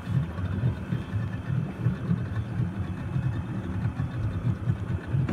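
Wind buffeting the microphone: a low, irregular rumble that rises and falls without a steady beat, over faint open-air noise.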